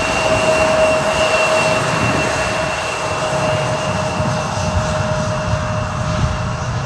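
Embraer E175's twin General Electric CF34 turbofans at taxi power as the jet rolls past: a steady whine made of two held tones over a broad hiss and low rumble.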